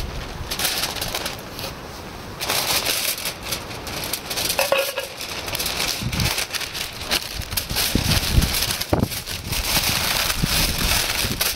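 Greaseproof paper crinkling and rustling as it is folded by hand around food on a sheet of aluminium foil. It starts with a few light knocks and scrapes, then from about two and a half seconds a steady crinkling.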